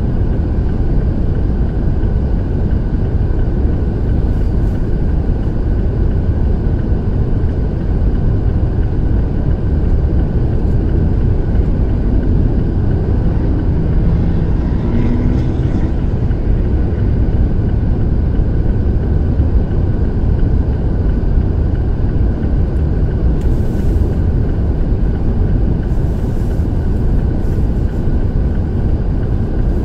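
Road traffic driving through an intersection on snow-packed streets: a steady low rumble of cars and trucks passing.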